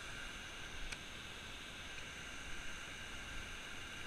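Steady rush of water pouring over a low concrete dam spillway, with a faint click about a second in.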